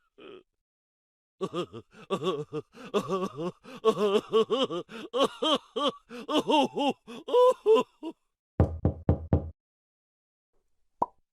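Comedy sound effects: a warbling, rapidly wobbling pitched sound for about six seconds, then five quick knocks in under a second.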